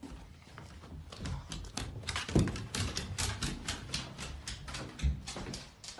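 A Staffy's claws clicking rapidly on a hardwood floor as it runs about, with a single heavier thump about two seconds in.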